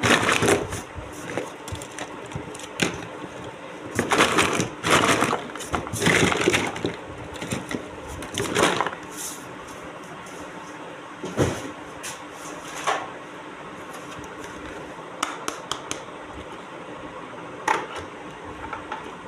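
Unboxing a miniature plastic toy kitchen set: packaging crinkles and rustles in several bursts, with scattered sharp clicks and taps of small plastic pieces.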